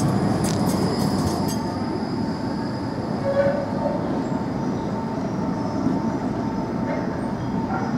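Low-floor Škoda tram passing close by on street track, its wheels clicking sharply several times over the rail joints in the first two seconds, then a steady rumble of tram running noise.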